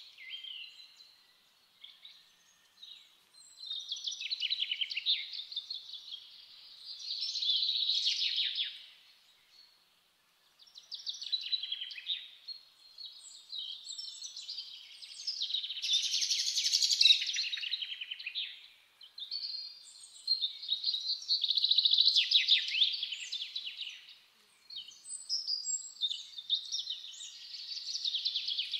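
European greenfinches twittering: repeated phrases of rapid trills and chirps, each lasting a second or a few, with short pauses between.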